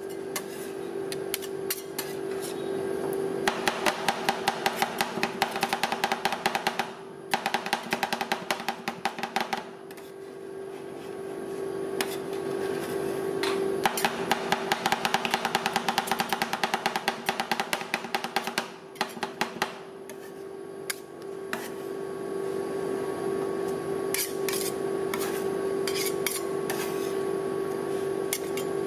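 Two metal spatulas chopping and scraping ice cream mixture on the steel freezing plate of a rolled ice cream pan: several long bursts of fast clicking, with scattered taps near the end, over a steady hum.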